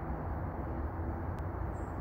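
Steady low outdoor rumble with a faint steady hum, and one small click about a second and a half in.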